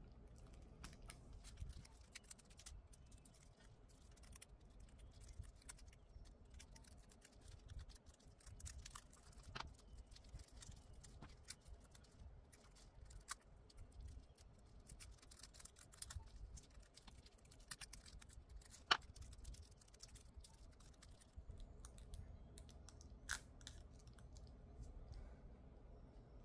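Faint, scattered clicks and taps of gloved hands handling nail tips and a nail tool, with light scraping as transfer foil is pressed and rubbed onto a tip. Two sharper clicks stand out in the second half.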